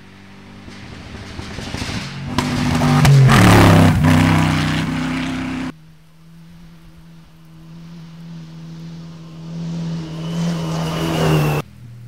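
Cross-country rally car engine at full throttle, approaching and passing close by with its pitch dropping as it goes past. The sound cuts off abruptly about halfway through, and a second rally car is heard approaching, growing louder until it too cuts off suddenly near the end.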